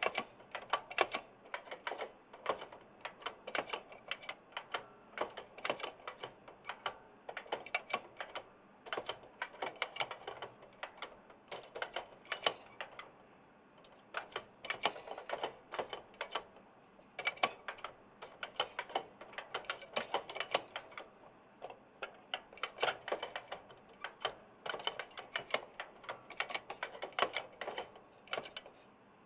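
Typing on an oversized mechanical keyboard with Kailh Blue clicky switches: runs of rapid, sharp key clicks lasting a few seconds each, broken by short pauses.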